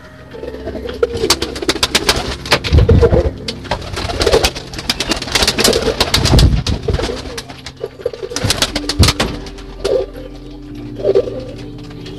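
Domestic pigeons cooing repeatedly in a loft, with clusters of sharp wing claps and flutters as birds take off and land, the loudest a few seconds in and again about two-thirds of the way through.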